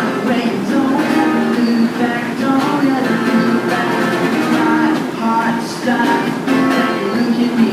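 Acoustic guitar strummed steadily, playing a song's chords.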